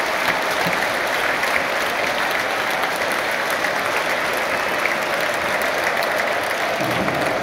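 Large stadium crowd applauding steadily, a dense, even clatter of many hands.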